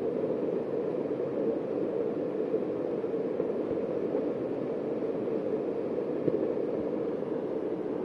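Steady rushing noise with no distinct events, even throughout.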